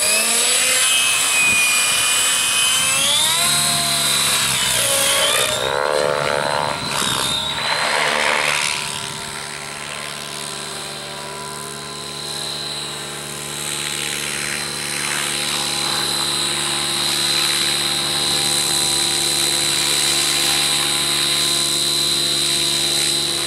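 Align T-Rex 700 RC helicopter running with a high rotor and motor whine, its pitch gliding up and down over the first several seconds, then holding steady.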